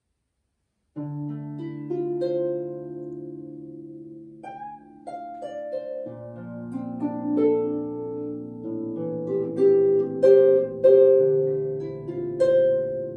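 Solo harp, both hands plucking the strings: it starts about a second in, with low bass notes left ringing under a higher melody, and grows louder toward the end.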